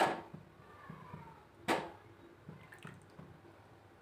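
Steel ladle dipping into thick boiled milk in a steel pan and pouring it into a bowl: liquid dripping and splashing softly, with two sharp clinks of the ladle, the louder about one and a half seconds in.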